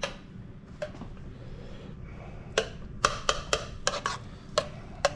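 Kitchen utensils clicking and clinking against a dish or bowl: a handful of short, sharp taps, with a quick run of four about three seconds in.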